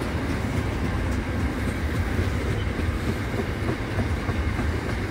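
A freight train's covered hopper wagons rolling past close by, their wheels running on the rails in a steady rumble.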